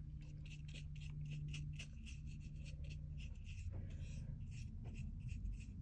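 Small paintbrush dabbing and scrubbing paint onto a canvas: faint, scratchy strokes, a few a second, over a steady low hum.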